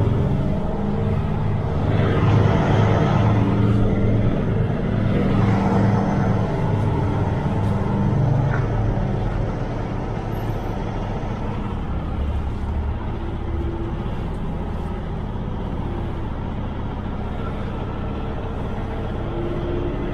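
Semi-truck tractor's diesel engine running as the truck moves slowly around the lot, heard through the open driver's window. It is somewhat stronger over the first several seconds, then settles a little quieter.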